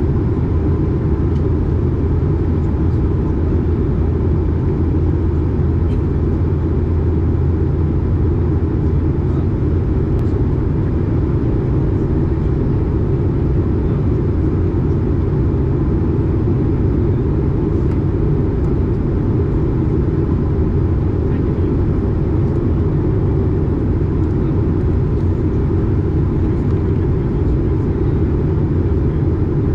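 Steady cabin noise inside an Airbus A220 in flight: a deep, even drone from its Pratt & Whitney PW1500G geared turbofan engines and the airflow past the fuselage, with a faint steady tone above it.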